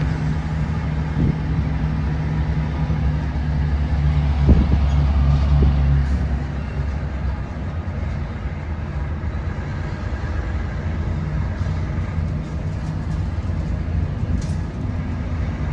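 Heavy truck's diesel engine and road noise heard from inside the cab while driving, a steady low drone that swells for a few seconds and eases off about halfway through.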